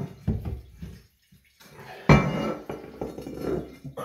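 Porcelain toilet tank lid clinking and scraping as it is handled and set down: a few light knocks in the first second, then a harder knock about two seconds in, followed by over a second of scraping.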